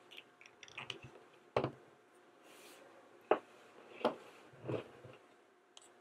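Hard plastic doll parts clicking and knocking as the snap-on dress and shoes are pulled off a plastic Minnie Mouse dress-up figure and set down on a table: a handful of short, irregular clicks.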